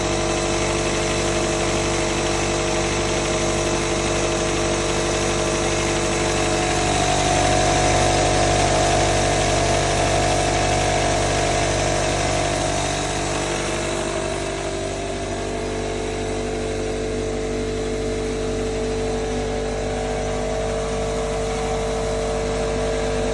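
An engine running steadily. It gets a little louder about seven seconds in and eases off slightly around fourteen seconds.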